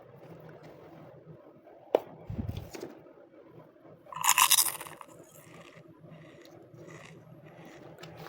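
Small toy kitchen pieces and their packaging being handled: a sharp click about two seconds in, a low knock just after, and a brief, louder clattering rustle about four seconds in, with small clicks and clinks around them.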